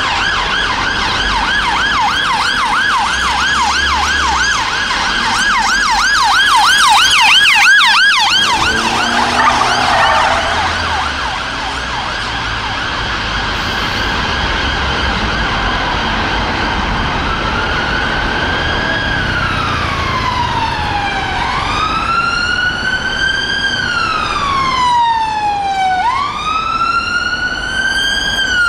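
Emergency vehicle sirens from a Metropolitan Police BMW 530d and a London Ambulance Service Skoda Octavia responding. A fast yelp runs for the first eight seconds and is briefly joined by a second, higher and faster yelp. A short tyre squeal comes about nine seconds in, then a steady tone, and from about eighteen seconds a slow wail rising and falling every four seconds or so.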